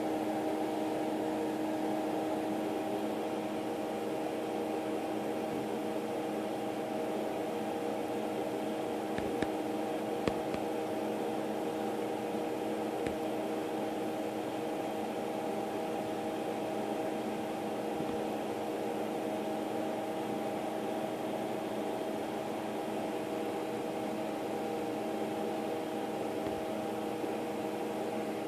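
A steady mechanical hum, several fixed tones over an even hiss, unchanging throughout, with two small clicks around ten seconds in.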